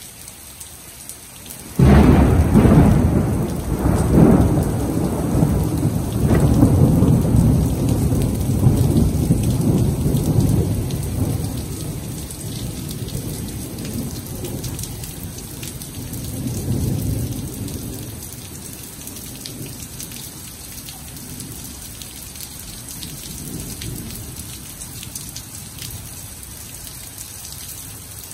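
Thunder cracks suddenly about two seconds in and rolls on in deep rumbles for about ten seconds before fading, with a second, weaker rumble a little past halfway. Heavy rain falls steadily on the wet pavement underneath.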